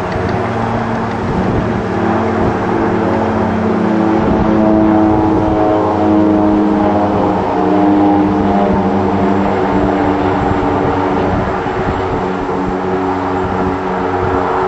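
IA-58 Pucará's twin Turbomeca Astazou turboprop engines and propellers running as the aircraft comes in low on approach with gear down: a steady propeller drone with several humming tones that shift in pitch midway, loudest about five to eight seconds in.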